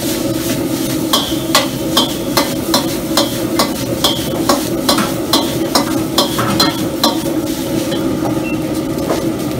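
Metal ladle clanking and scraping against a wok as fried rice is stir-fried and tossed, about two to three strokes a second. The strokes stop about seven seconds in. Underneath runs a steady rush and sizzle of food frying over a high gas flame.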